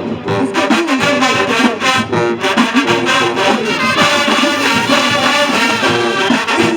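Marching band playing loudly, its brass section of trombones and trumpets carrying the tune.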